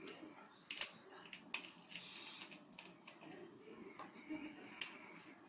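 Irregular clicks and light taps from a ceiling fan's parts being handled and fitted together during reassembly, with sharper clicks about three-quarters of a second in and near the end.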